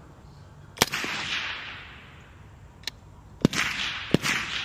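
Rifle shots on a firing range: one loud shot about a second in, a fainter distant shot, then two more loud shots close together near the end. Each shot trails off in a long echo.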